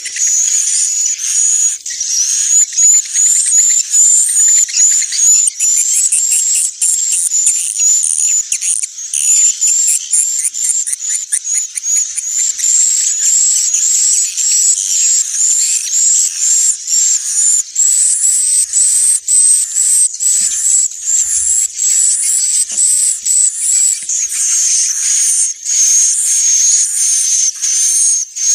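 Edible-nest swiftlet calls: a dense, unbroken stream of rapid high-pitched chirps and twitters. This is a recorded 'inap' (roosting) lure call of the kind played from swiftlet houses to draw the birds in to roost and nest.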